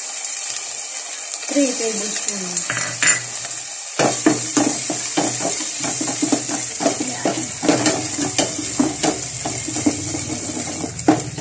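Garlic, onion and shrimp paste sizzling in oil in a stainless steel pot. From about four seconds in, a spoon scrapes and clinks against the pot as the mixture is stirred.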